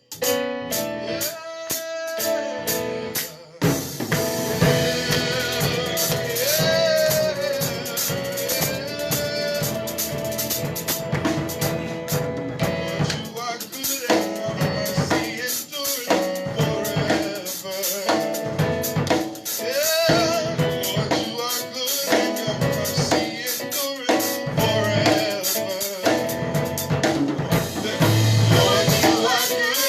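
Gospel praise music with a drum kit; the full band comes in about three and a half seconds in.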